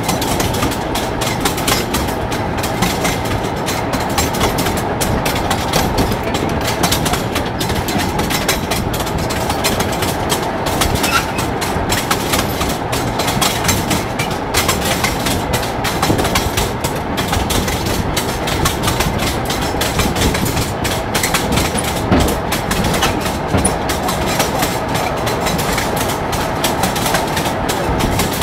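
Rail draisine (motor trolley) running along the track: a steady rattling ride noise, with the wheels clattering over the rails.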